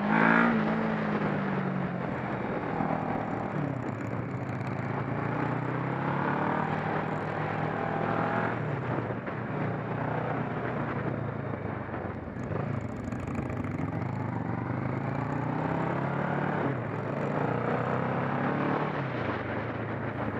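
Kawasaki ER-6n's parallel-twin engine heard from on board the bike as it is ridden. Its revs rise and fall several times as the rider accelerates and eases off, over steady wind and road noise.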